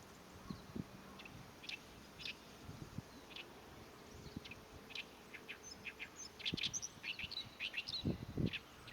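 Oriental reed warbler singing its harsh, chattering territorial song: rasping 'gyo-gyo-shi' phrases, scattered at first, then packed into a fast run about two-thirds of the way in. Two low thumps sound near the end.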